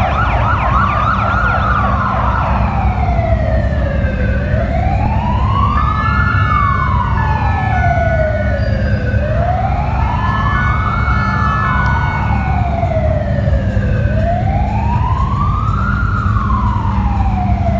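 A siren wailing, its pitch rising and falling slowly, about one full rise and fall every five seconds, over a steady low rumble.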